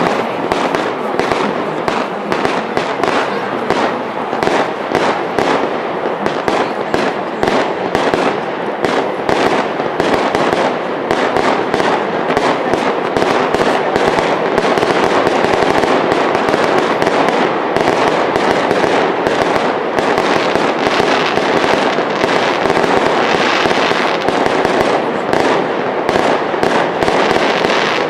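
Aerial fireworks display: a rapid barrage of shell bursts and crackling, many reports a second, which in the second half run together almost without a gap.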